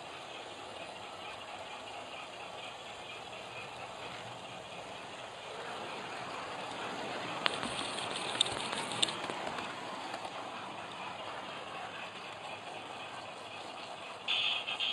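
Model freight train behind a Bachmann Robinson O4 steam locomotive rolling around a model railway layout: a steady rattle of wheels on track. The rattle swells slightly about halfway, with a few sharp clicks over a couple of seconds.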